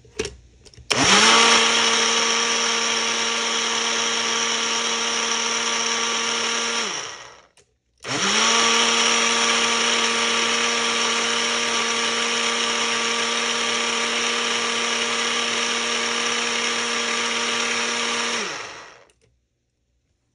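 Ninja Fit personal blender's motor blending carrot, celery and apple with juice in two runs: it spins up about a second in, runs steadily with a high whine for about six seconds and winds down. It starts again a second later and runs about eleven seconds more before winding down.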